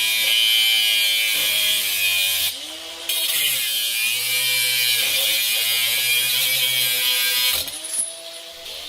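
Makita DGA452Z 18V cordless angle grinder with a Norton cutting disc cutting through a hardened 12mm steel chain link: a motor whine under a loud high grinding hiss, with the pitch sagging under load several times and easing off briefly about two and a half seconds in. About seven and a half seconds in, the disc breaks through the link and the grinder winds down.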